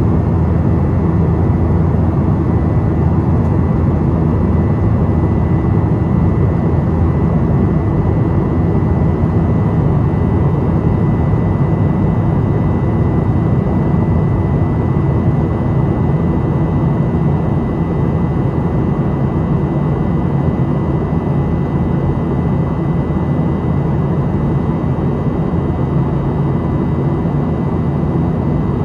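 Steady cabin noise of a Boeing 737-700 in flight, heard from a window seat beside the wing: a constant low rumble of airflow and its CFM56-7B turbofan engines, with a faint steady high whine over it.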